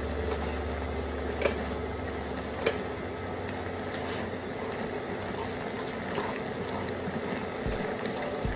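Metal tongs scraping and clicking against a pan while tossing fettuccine in simmering cream sauce, with two sharper clicks about a second and a half and nearly three seconds in, over a steady hiss. A low hum fades out after the first few seconds.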